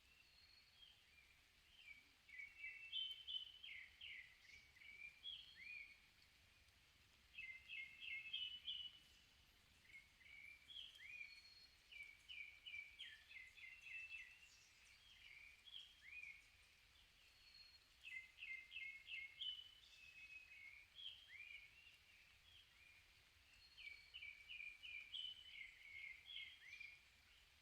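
Forest birds singing faintly: phrases of quick, high chirping notes come in bursts of a second or two and repeat every few seconds.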